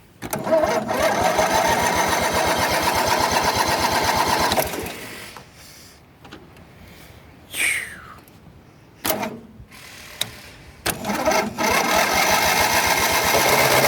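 Engine of the 225 cranked by its electric starter from a jump-starter booster pack: two cranking attempts, about four seconds and then about three seconds, turning over in a fast even rhythm without catching. The engine fails to start on a weak booster.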